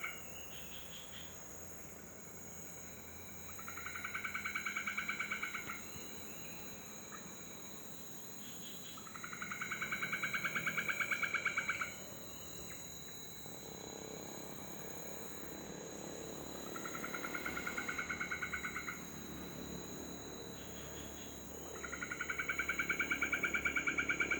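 A night animal's rapidly pulsing trill comes in bouts of about two seconds, four times, with a steady high-pitched insect drone underneath. This is a nocturnal forest chorus.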